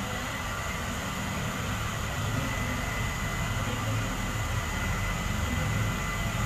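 Handheld hair dryer blowing steadily: a constant rush of air with a thin, steady whine from its motor.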